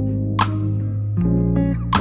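Background music: a guitar and bass instrumental passage with a steady beat, a chord change about a second in.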